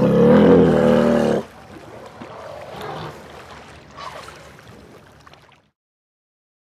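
A loud, low roar from an animatronic Ice Age display, wavering in pitch and lasting about a second and a half. It gives way to the steady background noise of a busy mall hall, and the sound cuts off abruptly near the end.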